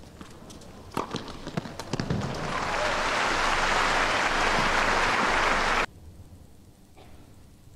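Tennis ball struck by rackets a couple of times, then a stadium crowd applauding the end of the rally. The applause cuts off abruptly about six seconds in, leaving quiet court sound.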